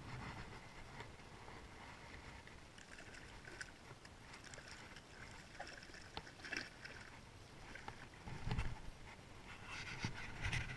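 Hooked carp splashing and thrashing in shallow water at the bank as it is landed, with a few louder splashes and knocks near the end.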